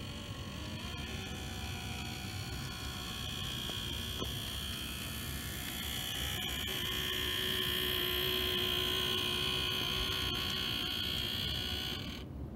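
Steady high-pitched motor whine of an N-scale Atlas RS-3 model diesel locomotive running along the track, driven by a TCS DCC decoder. It grows louder in the middle as the locomotive runs close by, then cuts off abruptly near the end.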